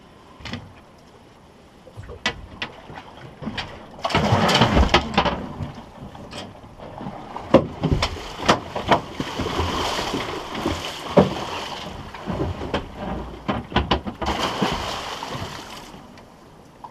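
Water splashing and rushing beside a small fishing boat, broken by sharp knocks and clunks of gear against the hull, as a hooked halibut is brought alongside. The splashing comes in bursts, heaviest about four seconds in and again in the middle.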